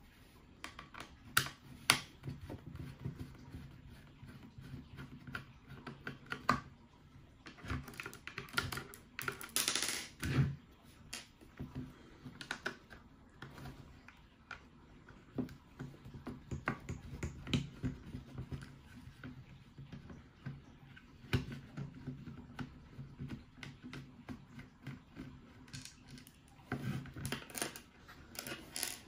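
Irregular small clicks and taps of a hex driver, screws and plastic parts as the servo mounting screws are undone from a Tamiya TL-01's plastic RC car chassis, with a few louder knocks, the loudest about two seconds in and around ten seconds in.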